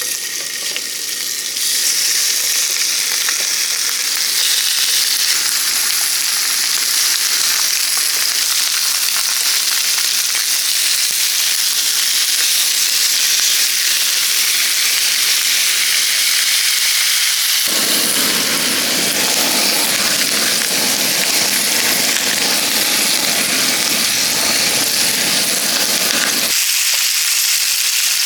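Food frying in a hot pan, a loud, steady sizzle. From about 18 s to 26 s a deeper rushing layer joins the sizzle, then drops away.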